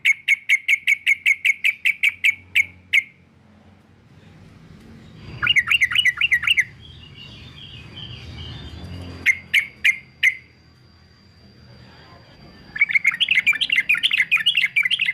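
Male yellow-vented bulbul calling in bursts of rapid, sharp repeated notes: a run of about a dozen at the start, two short bursts in the middle and a dense chattering burst near the end. A faint steady high tone runs beneath the later part.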